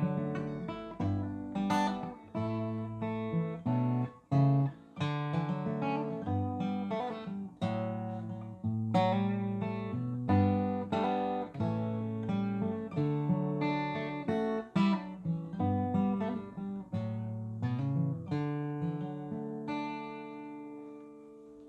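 Acoustic guitar instrumental, a run of picked notes and chords, ending on a last chord that rings out near the end.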